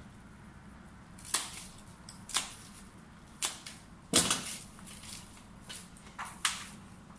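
Scissors snipping through palm fronds: a string of short, sharp cuts roughly a second apart, with one louder knock about four seconds in.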